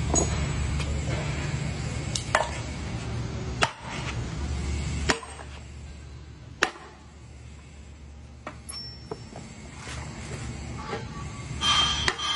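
Sharp knocks about one and a half seconds apart, typical of a tool striking metal during motor repair work, over a low hum that drops away about five seconds in.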